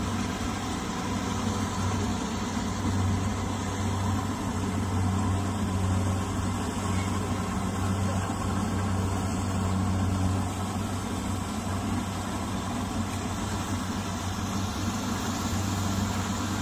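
Rice combine harvester's diesel engine running steadily as the machine cuts through the paddy, a constant low hum.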